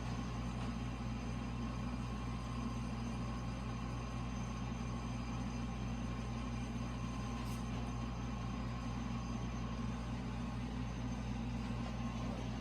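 Steady low hum, as of a motor or fan running, unchanging in level throughout.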